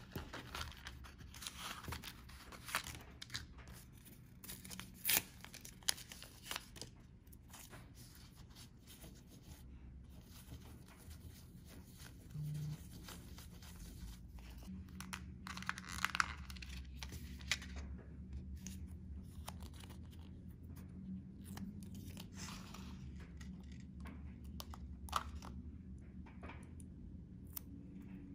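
Handling noise from small packaging: a plastic blister tray crinkling and clicking, with several sharp clicks in the first few seconds, and a paper lens-wipe packet tearing and rustling as it is opened and rubbed over the phone's camera glass. A faint low hum sets in about halfway.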